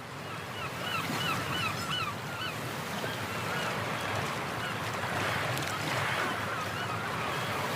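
A bird calling over a steady background hiss: a quick series of short, pitched, rising-and-falling notes, about three a second, in the first two seconds, then fainter scattered calls.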